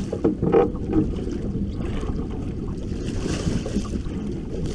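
A steady low rumble of wind buffeting the microphone and water washing against a boat's hull.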